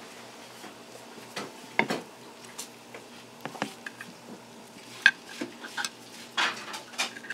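Kitchen utensils clinking and scraping against pans and dishes: a scattering of irregular sharp clinks, some ringing briefly, with a longer scrape about six and a half seconds in.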